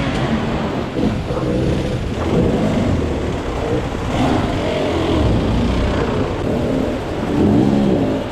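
Enduro motorcycle engine revving, its pitch climbing and falling several times as the throttle is worked.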